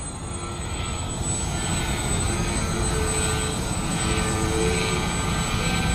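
Electric motor and propeller of a small RC airplane in flight, a distant whine that shifts in pitch as the throttle is worked, over a steady low rush of noise.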